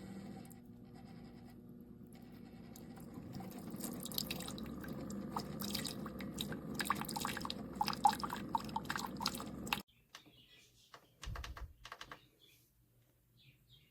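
Keurig K-Supreme single-serve coffee maker brewing: a steady machine hum with liquid streaming and dripping into a cup, growing louder, then the brew cuts off suddenly about ten seconds in.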